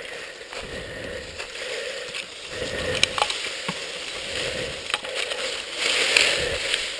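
Tall grass and brush rustling and crunching as it is pushed through and cut with a hand-held knife, with a few sharp clicks along the way and a louder stretch near the end.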